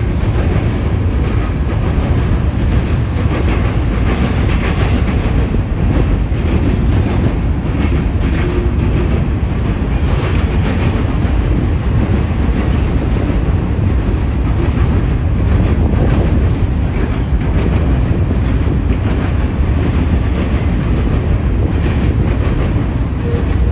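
Double-stack intermodal well cars of a long freight train rolling steadily past: a continuous low rumble with the clickety-clack of wheels over rail joints.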